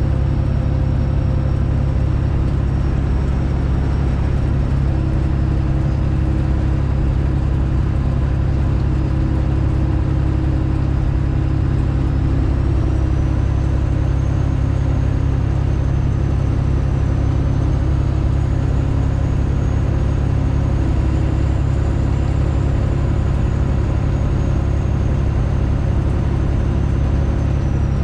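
Straight-piped Detroit Diesel engine of a Freightliner Classic XL running steadily under way, a loud, deep, even exhaust drone. A faint high whine sits above it and rises a little in pitch about halfway through.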